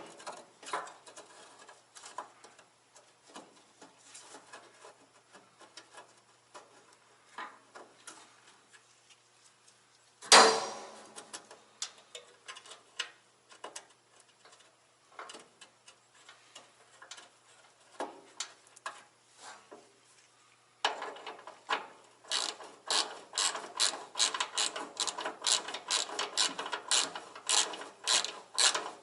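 Hand ratchet wrench clicking as it is worked in short swings, sparse at first, then a fast steady run of clicks through the last third. A single loud metallic clank about ten seconds in.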